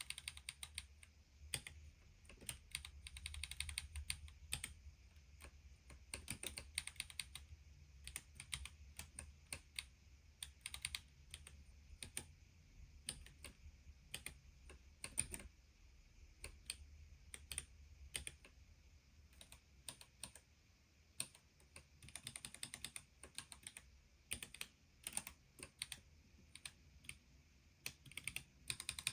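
Typing on an Ergo Split split ergonomic keyboard while editing text: quick runs of keystrokes alternate with single key presses and short pauses.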